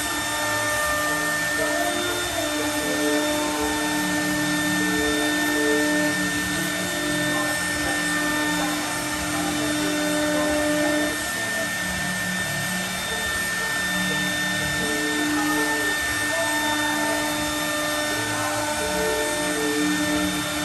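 CNC milling router cutting aluminium composite panel: the spindle runs with a steady high whine over continuous machine noise, with lower tones that come and go as the cut goes on.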